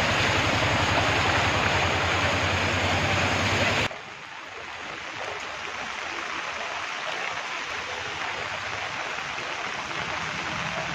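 Heavy rain pouring and water rushing, loud and dense with a low steady hum under it, then cutting suddenly about four seconds in to a softer, steady rain hiss.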